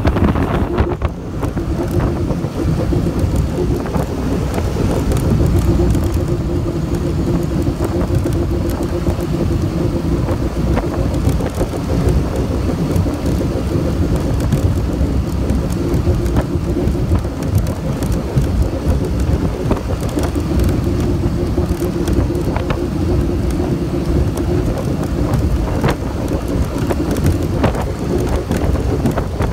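Mercury Racing 400R outboard running near wide-open throttle at about 7,000 rpm, the boat at about 74 mph, under heavy wind on the microphone and rushing water. A steady drone from the motor sits beneath the wind.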